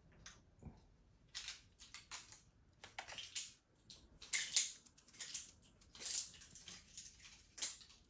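Crinkly plastic wrapper crackling and crunching as a cat bites it and shakes it in its mouth, in irregular quick bursts that begin about a second and a half in.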